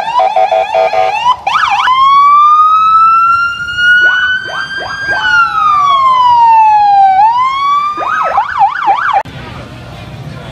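Electronic siren on a white touring motorcycle, cycling through modes: rapid stepped chirps, then a slow wail that rises and falls, then a fast warbling yelp. It cuts off abruptly near the end, giving way to a quieter crowd murmur.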